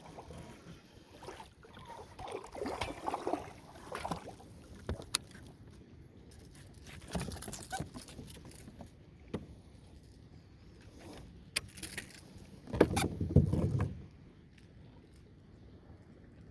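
Irregular knocks, clicks and rustling of a bass being landed and handled in a sit-on-top fishing kayak, with one louder, deep rumbling burst about thirteen seconds in.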